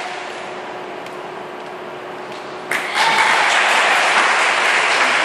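Group of children clapping and calling out in applause. After a quieter lull it breaks out suddenly, loud and sustained, about two and a half seconds in.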